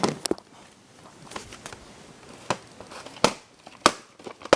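Handling of a plastic VHS tape and case: about six separate sharp plastic clicks and knocks spread over a few seconds, with faint crinkling between them.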